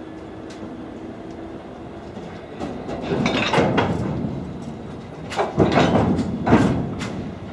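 Network Rail HOAF ballast hopper wagons rolling slowly past, their wheels clattering over the rail joints in two loud bursts as the bogies go by, over a steady low rumble.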